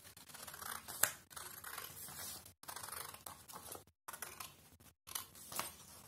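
Scissors cutting through a folded, two-layer paper sleeve pattern in about four long strokes with short pauses between them. A sharp click about a second in is the loudest sound.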